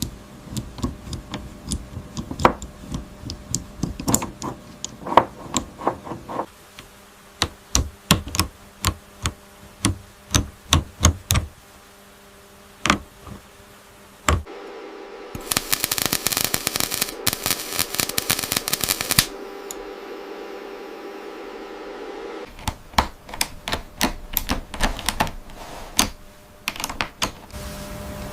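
Rapid, irregular light taps and knocks, like small tools working, with a few seconds of hissing noise about halfway through.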